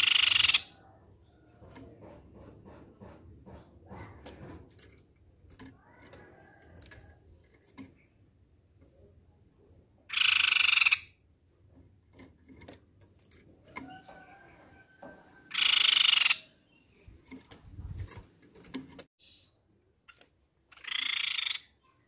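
Crescent-chested babbler (tepus pipi perak) calling in a cage: four loud calls of about a second each, one at the start, one about ten seconds in, one about sixteen seconds in and one near the end. Faint taps and clicks come from the cage between the calls.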